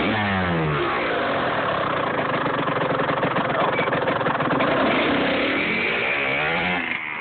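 Kawasaki KX85 dirt bike's 85cc two-stroke single-cylinder engine running under throttle as it rides off. Its pitch falls over the first second, runs steadily, then rises again near the end.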